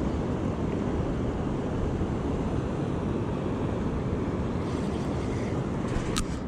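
Steady rushing noise of a fast-flowing river riffle, mixed with wind on the microphone, with a single short sharp click near the end.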